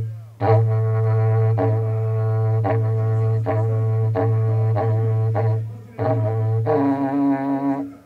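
Berrante, a Brazilian cattle-horn trumpet, blown with the lips as a low steady drone with pulses about once a second. It breaks briefly for breath about six seconds in, and a higher note sounds over the drone near the end.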